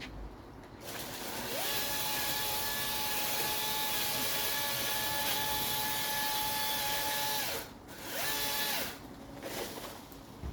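An electric power tool's motor spins up with a rising whine, runs steadily for about six seconds and winds down, then runs again for about a second near the end.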